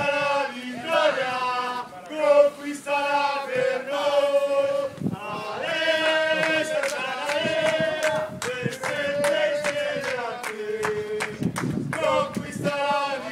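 A group of men singing a football ultras chant together in unison, in long held phrases, with a few sharp hits in places.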